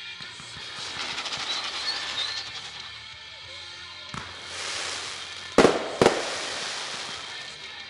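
Fireworks shells bursting over a music soundtrack: a sharp pop about halfway in, a rushing hiss, then two loud bangs about half a second apart.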